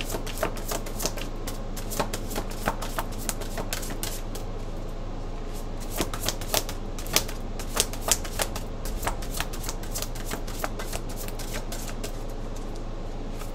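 Deck of spirit animal oracle cards being shuffled by hand: a long run of irregular light clicks and taps of card against card, over a low steady hum.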